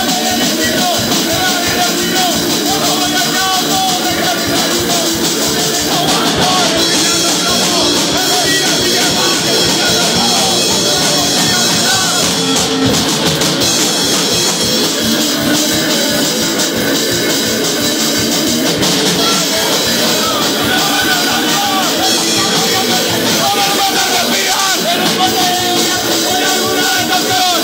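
Live punk rock band playing loud and fast: a drum kit with cymbals and sung or shouted vocals over the band, the cymbals coming up brighter about six seconds in.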